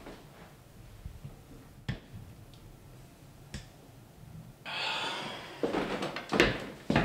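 Door and footstep noises in a small hallway: a couple of sharp clicks, then a brief rustle and several heavier knocks and thuds near the end.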